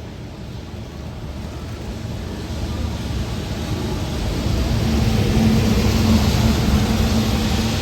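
A locomotive-hauled train approaching, its rumble growing steadily louder, with a steady hum joining about four seconds in.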